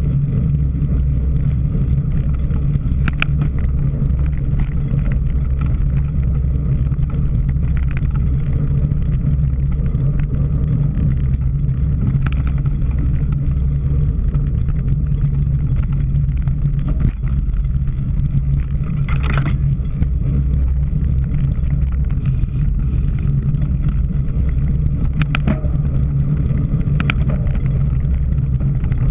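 Wind rushing over the microphone of a camera riding along on a cyclocross bike: a steady low rumble, with scattered sharp clicks and ticks from the bike and a brief hiss about two-thirds of the way in.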